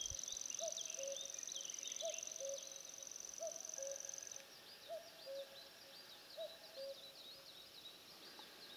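Birds calling in a reedy meadow: a low hooting two-note call repeats about once a second, with higher chirping over it. A steady high-pitched whine, like an insect trill, runs alongside and stops about halfway through.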